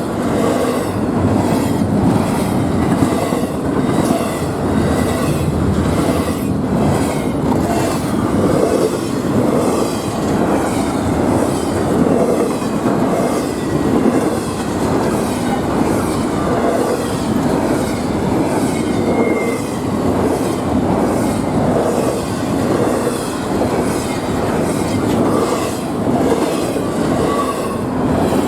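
Freight train cars rolling past, their wheels clacking rhythmically over rail joints, with a brief high wheel squeal about two-thirds of the way through.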